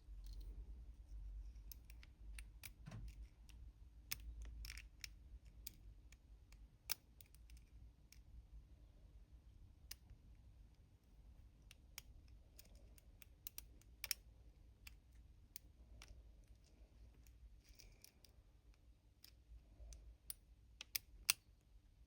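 Faint, irregular clicks and small scrapes of a lock pick and tension wrench working the pins inside a challenge lock held in the hand, with a few sharper clicks here and there.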